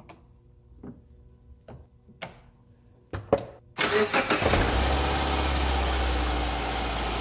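A few light clicks, then the 2009 Subaru Forester's 2.5 L SOHC flat-four, jump-started from a booster pack, cranks briefly and catches about four seconds in. It settles into a steady idle.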